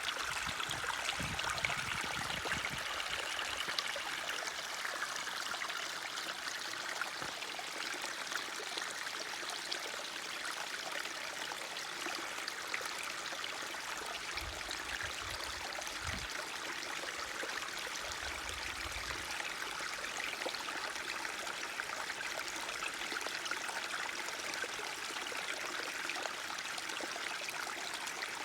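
A forest stream running and trickling with a steady, even rush of water, with a few brief low rumbles.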